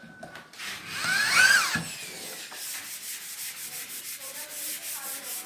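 Wood being worked by hand with an abrasive: one loud scraping stroke with a squeal about a second in, then faint, quick, even rubbing strokes.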